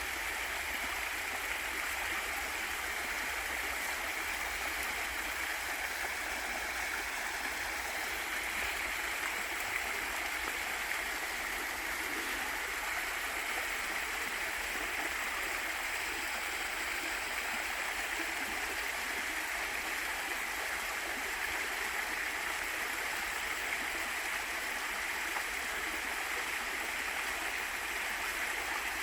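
Small waterfall and mountain stream running steadily, an even rush of falling and flowing water.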